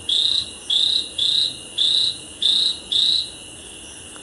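A night-calling animal repeating a loud, high-pitched chirping call about six times, a little over half a second apart. The calls stop a bit past three seconds in, leaving a steady high insect-like trill that runs on underneath.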